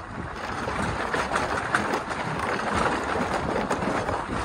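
Steady rushing noise of a vehicle on the move, peppered with many small knocks and rattles, as it goes down a steep, rough slope that jolts the camera.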